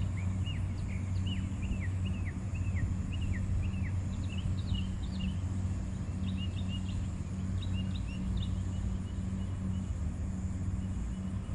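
Outdoor ambience under a steady low mechanical hum. Over it a bird gives rapid short down-slurred chirps for the first few seconds, then fainter, sparser chirps until they fade. A faint steady high hiss runs underneath.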